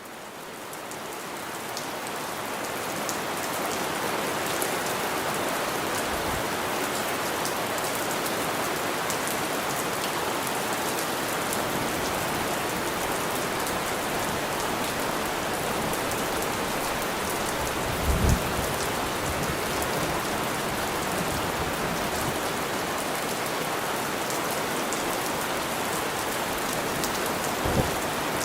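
Steady, heavy rain falling on a surface, fading in over the first few seconds. Two brief low thumps stand out, one about two-thirds of the way through and one near the end.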